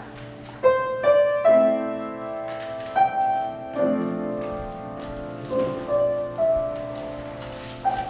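Slow solo piano music: a gentle melody of separate notes, each struck and left to ring out before the next.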